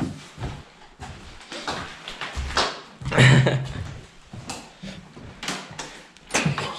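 Scattered knocks, clicks and shuffling of people moving through small rooms and handling things, with one louder knock about three seconds in.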